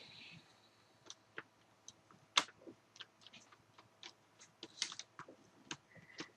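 Small, irregular clicks and taps of plastic laptop trim and a screwdriver being handled as the trim screws go in, with one sharper click about two and a half seconds in.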